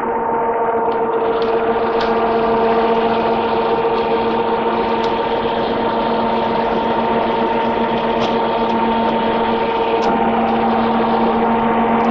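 Maradyne Mach 2 dual 11-inch electric radiator fans running at a steady speed: a constant rush of moving air with a steady motor hum.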